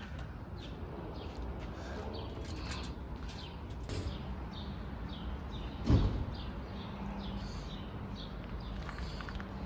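A small bird chirping repeatedly, a few short falling chirps a second, over a low steady hum, with one louder thump about six seconds in.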